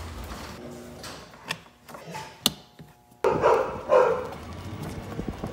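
Garage door opener running as the garage door rolls up, stopping about a second and a half in, followed by a couple of sharp clicks. Two loud, short sounds come about three and four seconds in.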